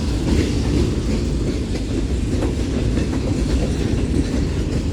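Freight cars of a BNSF manifest train rolling past: a steady low rumble of wheels on rail, with scattered clicks as the wheels cross the rail joints.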